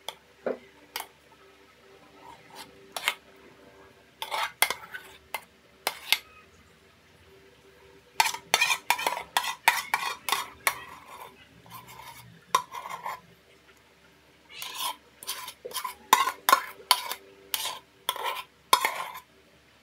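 Spoon scraping and knocking against the inside of a cooking pot in several bursts of quick strokes, as thick maja blanca pudding is scooped out.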